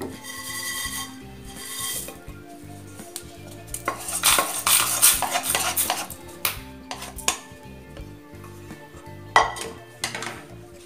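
A non-stick kadai being handled and a wooden spatula scraping and rattling dry-roasted spices (pepper, sesame seeds, fenugreek, curry leaves) around in it, in bursts. A sharp knock of the pan near the end.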